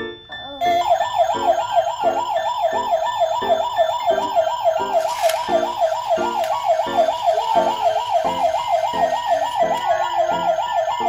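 Electronic siren warbling fast, rising and falling about four times a second, starting just under a second in, over an evenly repeating pattern of lower notes.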